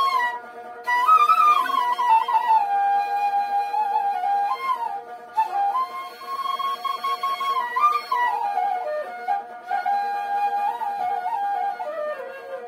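Flute playing an ornamented Assamese folk melody, its notes sliding and wavering between pitches over a steady held drone. The tune pauses briefly near the start and then carries on.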